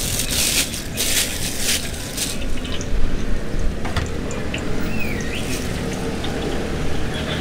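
Oyster fritters deep-frying in a wok of hot oil: a steady bubbling sizzle, hissier for the first couple of seconds, with a few light clicks.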